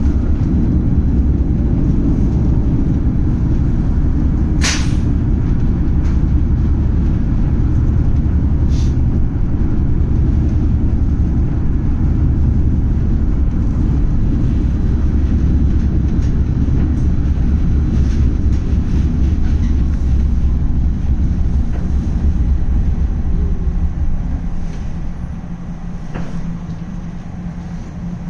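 Tram running: a loud, steady low rumble, with a sharp click about five seconds in and a fainter one a few seconds later. The rumble dies down near the end.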